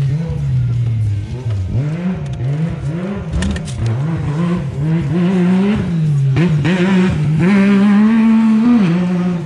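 Dirt bike engine revved hard again and again, its pitch rising and falling about once a second, then held higher for a second or so near the end before dropping back.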